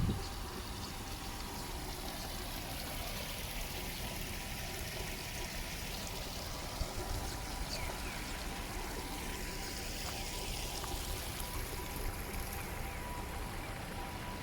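Steady rain falling on a city street: an even, continuous hiss of water.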